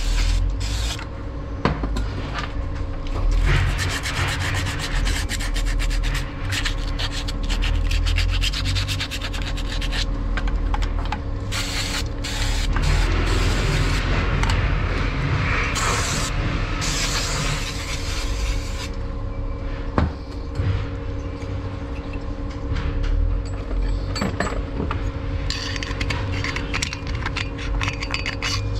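Carbon deposits being scraped and rubbed off the piston crown of an RTR MAX brush cutter, in a long run of short, irregular rasping strokes with one sharp tap partway through.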